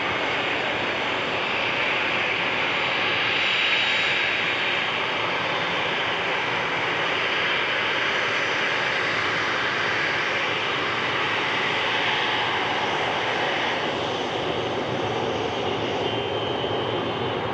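Airliner's jet engines making a steady rushing noise, a little louder about four seconds in and easing slightly near the end.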